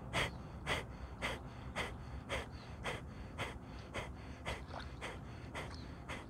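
Kapalbhati (fire breath) through the right nostril with the left held closed by a finger: short, forceful nasal exhalations in an even rhythm of about two a second.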